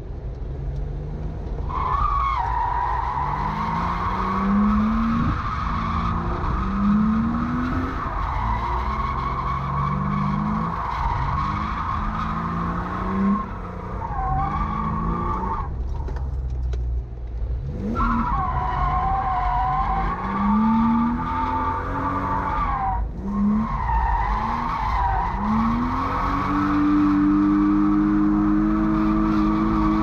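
BMW E36 drift car doing donuts, heard from inside the cabin: the engine revs rise again and again while the rear tyres squeal in a long, wavering screech. The squeal breaks off twice, and near the end the engine is held at steady high revs.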